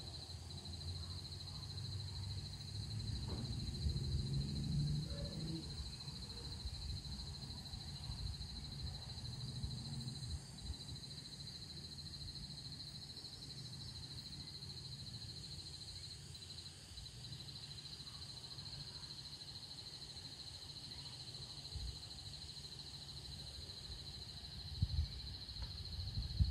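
Insects trilling steadily at a high pitch, over a low rumble of wind buffeting the microphone that swells a few seconds in and again near the end.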